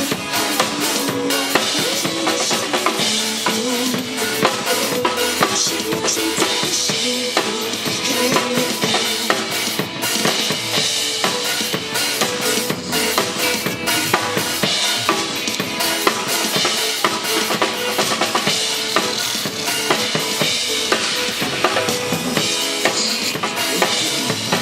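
Live band playing an instrumental passage of a pop song, with a steady drum-kit beat of bass drum, snare and rimshots under sustained instrument notes.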